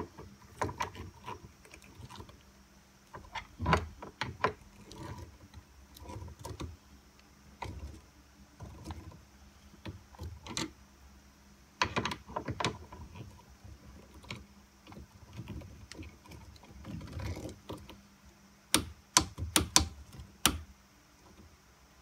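Adjustable wrench being set and fitted onto the flare nut of an air conditioner's copper refrigerant pipe: irregular metallic clicks and knocks, with a quick run of sharp clicks near the end.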